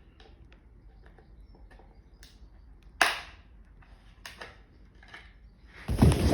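Plastic front cover of an alarm keypad being prised open by hand: small clicks, then one sharp loud snap about three seconds in as a clip lets go, then loud handling noise near the end.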